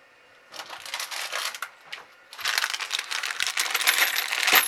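Small metal parts rattling and clinking in two bursts of rapid jingling, the second longer and louder.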